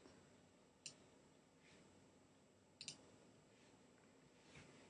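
Faint computer mouse button clicks against near silence: a single click about a second in, then a quick double click near the middle.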